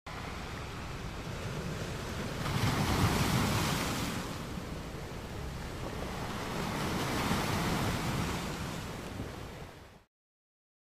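Ocean surf: waves breaking and washing in, swelling twice and fading out near the end.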